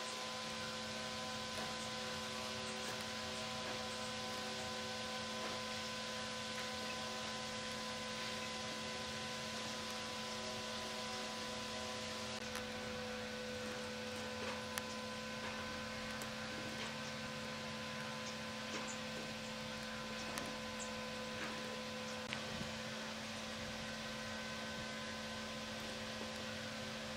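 Steady electrical hum with an even hiss underneath, unchanging throughout, with a few faint light ticks in the second half.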